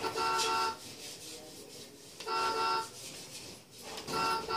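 Electronic horn of a battery-powered ride-on toy car beeping: three short, steady honks about two seconds apart, with a quieter scraping noise in between.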